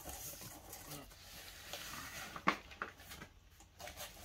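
Cardboard shipping box being handled and opened: scraping and rustling of the cardboard flaps, with scattered clicks and one sharp knock about two and a half seconds in.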